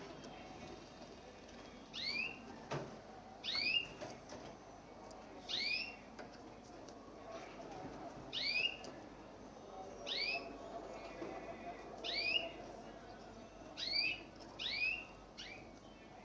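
White canary giving a short chirping call over and over, about eight times at uneven gaps of one to three seconds; each call is a quick rise and drop in pitch.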